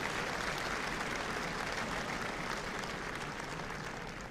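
Large seated audience applauding, the clapping slowly dying away toward the end.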